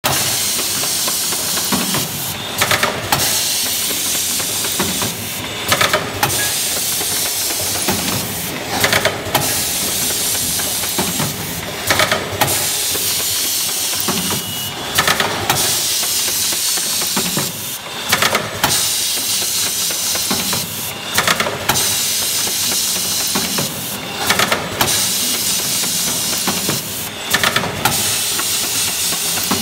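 Hot melt glue stick packing machine running: a steady hiss, with a short burst of clacks from its pneumatic cylinders about every three seconds as it cycles through counting and bagging the sticks.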